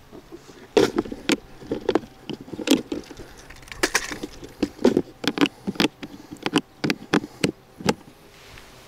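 Plastic tackle box being handled: lid, trays and lures clattering in a quick string of sharp plastic clicks and rattles over several seconds, ending with the lid latched shut.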